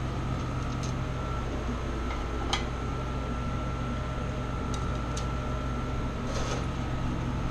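Steady mechanical hum with a faint high-pitched whine, like a kitchen appliance fan running, with a few light clicks about two and a half seconds in and again around five seconds.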